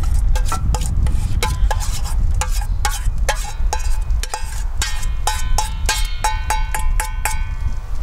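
Metal spoon scraping and tapping inside a metal bowl while mashing smoked perch fillet. From about three seconds in, the bowl rings with each tap, a quick run of clinks about four a second, over a steady low rumble.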